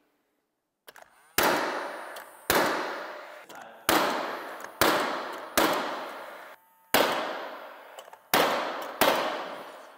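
Cordless fuel-cell nail gun firing nails into a cedar top rail: eight sharp shots at irregular intervals, each ringing on for about a second.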